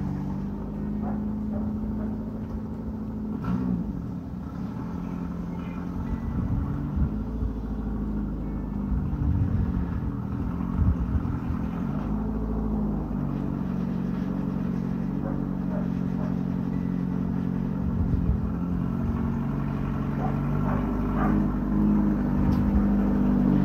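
1995 Ford Escort wagon's four-cylinder engine running with an open exhaust: a 6 to 8 inch hole between the catalytic-converter pipe leaves only the cat muffling it, so it is ludicrously loud. The engine note shifts up and down for several seconds in the middle, then settles.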